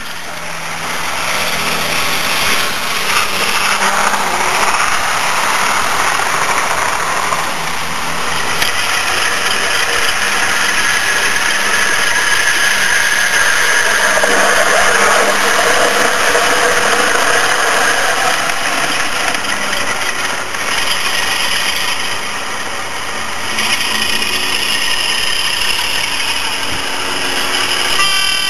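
Model diesel train running on garden railway track: a steady mechanical drone of motor, wheels and engine sound, growing louder as the train approaches and loudest about halfway through.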